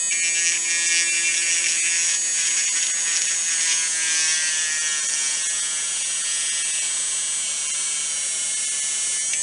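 Let's Resin USB electric resin drill running at high speed with a steady high-pitched whine, drilling holes in small resin beads.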